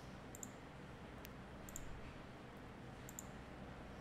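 Faint clicks of a computer mouse, a few quick double clicks, over a low steady hum.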